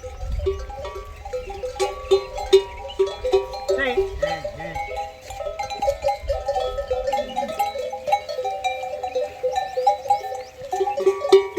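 Camels' neck bells clanking steadily and unevenly as the animals move, ringing at a few fixed pitches, with birds chirping throughout. A short animal call comes about four seconds in.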